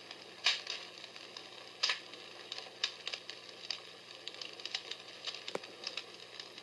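Comfort Smart Fire Crackler, a palm-sized battery-operated sound machine, playing its recorded crackling-fire sound on the low setting: irregular pops and snaps over a soft hiss.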